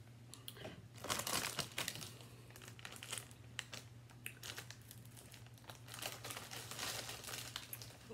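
Bag of UTZ Original potato chips crinkling as it is handled, in irregular crackly bursts, loudest about a second in and again around six to seven seconds.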